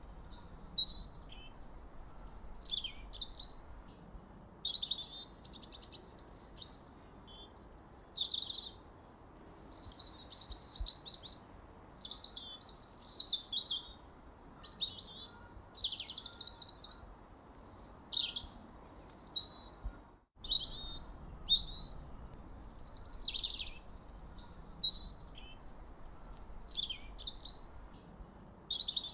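Bird song: a continuous run of short, varied high chirps and whistled phrases, over a faint steady hiss, with a momentary break about 20 seconds in.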